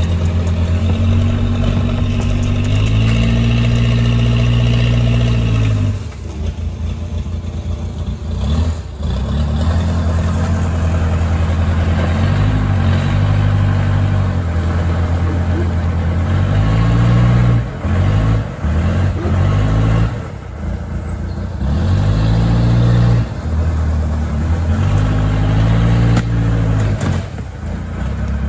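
A large engine running loudly, its pitch swinging up and down every few seconds as it is revved and eased off, with a few short dips in level.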